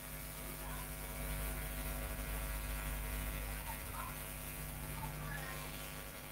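Steady electrical mains hum with its overtones, a constant low drone with no change.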